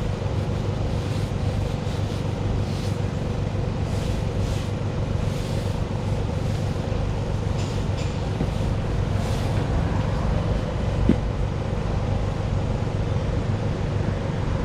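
An engine idling steadily, giving an even low hum that does not change.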